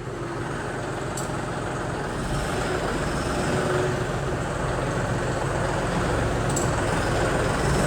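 John Deere tractor's diesel engine running steadily as the tractor is driven out, growing gradually louder.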